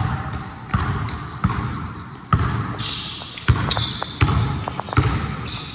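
A basketball being dribbled, a sharp thump about every three-quarters of a second, with short high squeaks between the bounces, typical of sneakers on a court floor.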